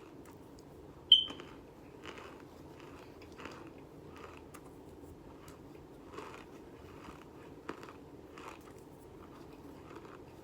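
Close-up chewing of crisp baked cornstarch chunks: soft, irregular crunches every half second or so. About a second in, a single short, sharp high ping rings out and fades quickly.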